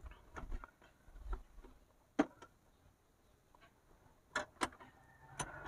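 A handful of light, sharp clicks and taps at irregular intervals against a quiet background, with a pair a little after four seconds in.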